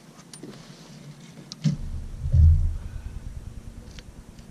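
A sharp knock about a second and a half in, then a low rumbling thud through the boat as a fishing rod is yanked from its holder and the hook is set on a fish.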